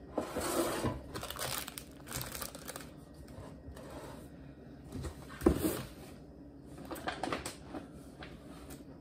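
Rustling and crinkling of packaging as items are handled and a cardboard shipping box is tipped and searched, with a single sharp knock about five and a half seconds in.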